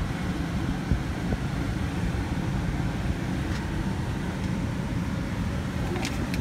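Steady low rumble of a vehicle idling, heard from inside its cabin, with a few faint clicks.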